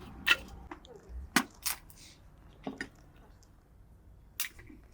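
Five or so sharp knocks and cracks, spaced irregularly, with quiet background between them.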